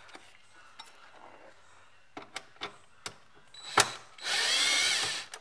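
Cordless drill running for about a second near the end, backing out a screw. Before it come a few light handling clicks and one sharp click.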